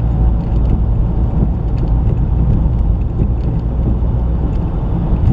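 Steady road rumble inside the cabin of a 2019 Chevy Trax driving over bumps, with a few faint knocks from the right front end. The clunk comes from loose brake caliper mounting bolts.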